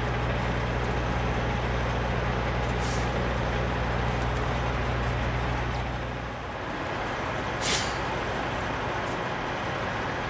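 Semi truck diesel engine idling with a steady low hum that drops away about six and a half seconds in, and two short hisses of air, about three and eight seconds in.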